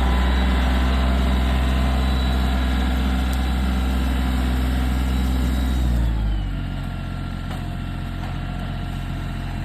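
Kioti CK3510 compact tractor's diesel engine running steadily, then throttled down about six seconds in, its pitch and level dropping.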